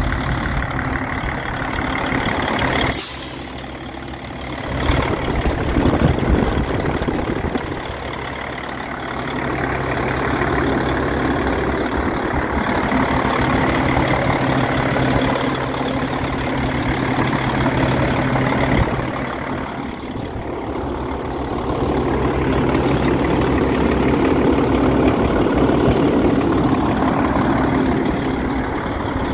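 Diesel engine of a 2007 Freightliner Columbia semi tractor idling steadily, with a brief sharp hiss about three seconds in.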